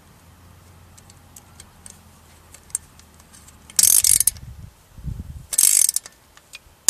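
Ratchet wrench clicking in two short, loud bursts about two seconds apart as it drives a bolt on a Bafang mid-drive motor's mounting, with a few faint ticks before them and a dull knock between the bursts.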